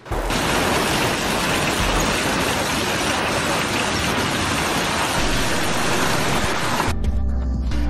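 Heavy storm rain and wind, a dense, steady hiss that cuts off abruptly about seven seconds in, where background music takes over.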